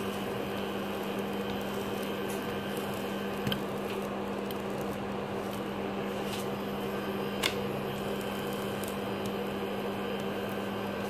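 Steady low hum with an even fan-like hiss from a running kitchen appliance, with a couple of light taps of a spatula on a nonstick tawa as a chapati is pressed on it.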